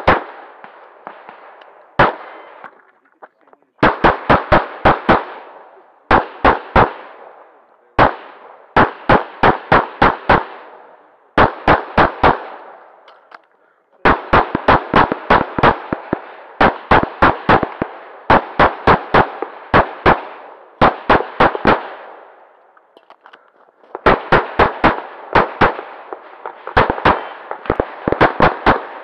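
Rapid pistol fire from a CZ 75 Tactical Sports Orange in .40 S&W, loaded to major power factor: strings of two to six quick shots, several a second, with single shots between and pauses of a second or two. Each shot is loud and sharp with a short ringing echo.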